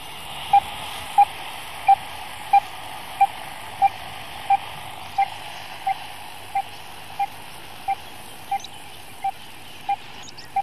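Wildlife radio-tracking receiver picking up a radio-collared wolf's transmitter: short, evenly spaced beeps, about three every two seconds, over a steady static hiss, slowly getting fainter.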